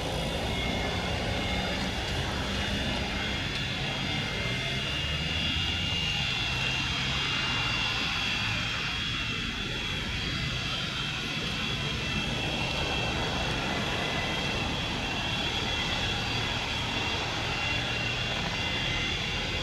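Boeing 727-200 freighter's three Pratt & Whitney JT8D turbofans running at taxi power: a steady high whine over a low rumble.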